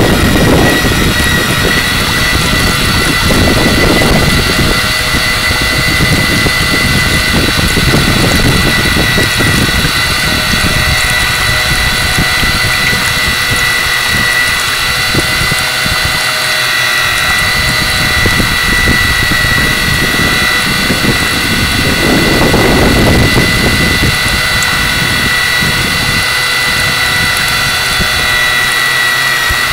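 A fireboat's engine running steadily under way, with a constant high whine over the engine drone. A low rushing noise swells and fades a few times.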